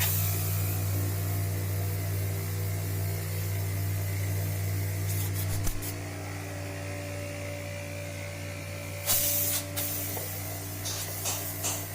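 Steady low electrical hum from mains-powered equipment, easing slightly about halfway through. A short hiss comes about 9 seconds in, and a few sharp clicks follow near the end.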